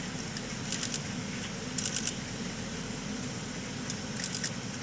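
Steady rushing airflow and ventilation noise in an airliner cockpit in flight, with three quick bursts of a DSLR shutter firing in continuous mode, each about four rapid clicks: about a second in, about two seconds in, and near the end.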